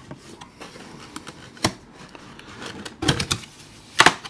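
Cardboard gift box being opened by hand: flaps rustling and scraping, with sharp taps and clicks about a second and a half in, a few around three seconds in, and the loudest just after four seconds.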